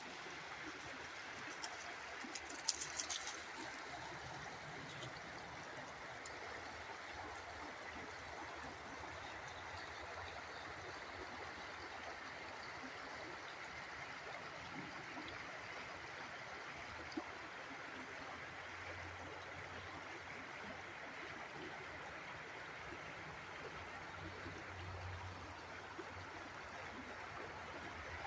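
Water flowing steadily in a small stream, an even trickling rush. A few sharp clicks come about three seconds in.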